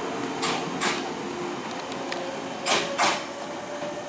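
Electric train pulling out of a station, its wheels clacking over rail joints twice in quick pairs as the bogies pass, over a steady hum.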